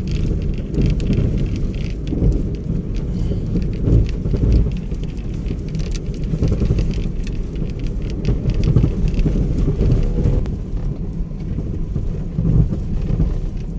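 Steady low rumble of a vehicle on the move, road and engine noise with a rough, crackly texture on top.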